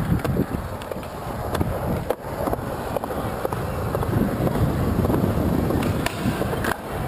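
Skateboard wheels rolling on smooth concrete in a steady rumble, broken by a few sharp clacks of the board hitting the ground or a ledge.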